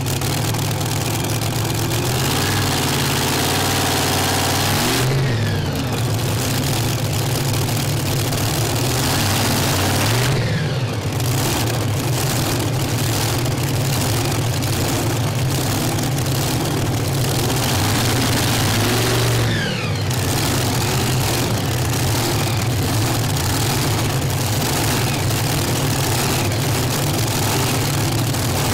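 Loud howl of a modified multi-engine tractor-pulling tractor, billed at 10,500 hp, running steadily after start-up, with a few brief changes in pitch from small throttle blips.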